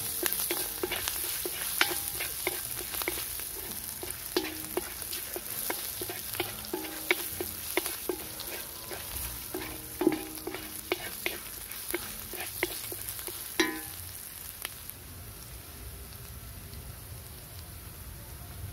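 A wooden spatula stirring and scraping shallots and chillies frying in oil in a steel kadai: a steady sizzle with frequent knocks against the metal, some of which make the pan ring. The knocking stops about 14 seconds in, leaving a fainter sizzle.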